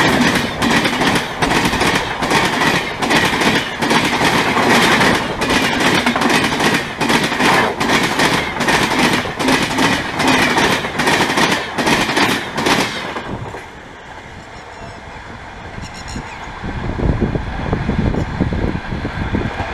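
Passenger train coaches passing at speed close by, wheels clattering rhythmically over the rail joints. About 13 seconds in the sound cuts to a much quieter scene, where the low rumble of a distant approaching diesel locomotive grows towards the end.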